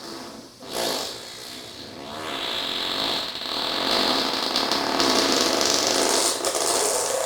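A short fart about a second in, then a long, drawn-out fart lasting about five seconds that grows louder.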